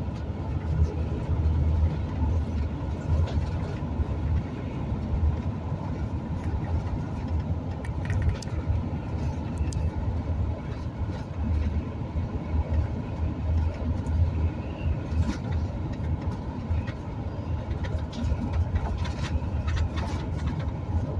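Road noise inside a moving vehicle's cabin: a steady low rumble of engine and tyres, with scattered small rattles and knocks.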